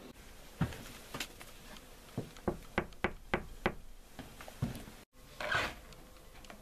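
Sharp knocks on wood: two single knocks, then a quick run of about six raps at roughly three a second. About five seconds in the sound cuts out for an instant, followed by a short scuffing noise.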